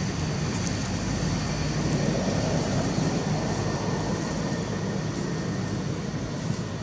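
Steady low rumble of outdoor background noise, with faint high steady tones above it.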